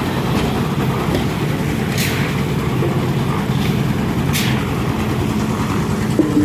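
Concrete mixer machine running steadily with a low engine drone, while short sharp clatters of shovelled cement, sand and crushed stone come twice, about two seconds and four and a half seconds in.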